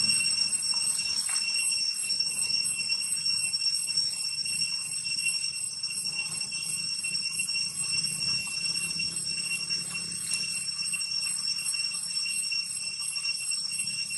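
Steady high-pitched insect chorus, a shrill ringing drone with a fast, even pulsing shimmer.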